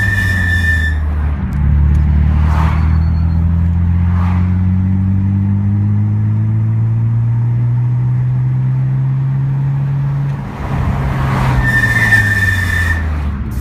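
Car with Ksport brakes: a high, steady brake squeal for about the first second, then the engine pulls away and climbs steadily in pitch as the car gains speed. Near the end the engine note falls as the car slows, and the brakes squeal again for about a second as it comes to a stop.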